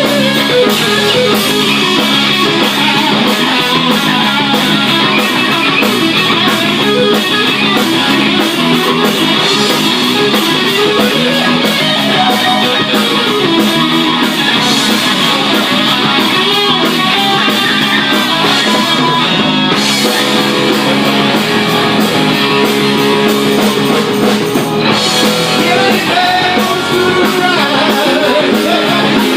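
Rock band playing: electric guitar over drum kit and bass.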